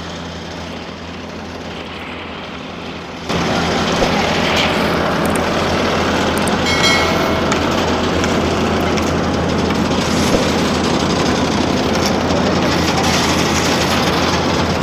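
Diesel engine of a Bobcat skid-steer loader running close by, a steady low drone. About three seconds in it turns suddenly louder and noisier, and stays that way.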